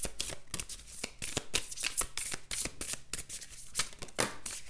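A deck of oracle cards being shuffled by hand: a quick, dense run of small clicks from the card edges.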